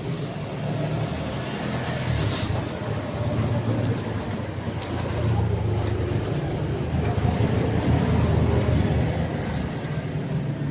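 Motor vehicles running on the road nearby: a steady low engine rumble that swells about two seconds in and eases near the end, like traffic passing.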